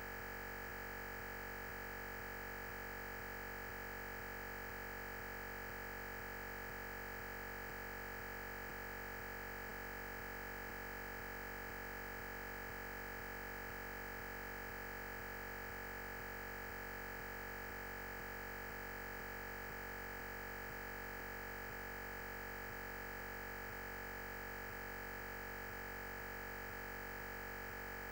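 Steady electronic hiss with a constant high-pitched tone, unchanging in level: recording noise where the lecture's sound is missing.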